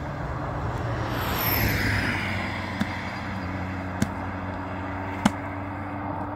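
An engine running steadily. A high whine falls in pitch about a second in, and three short sharp clicks come in the second half.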